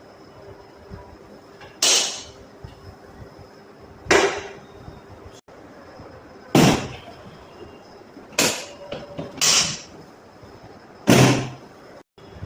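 Six sharp thumps from chiropractic adjustment thrusts, each one short with a brief ringing tail. They come about two seconds apart, with two closer together in the second half, and the last is the loudest.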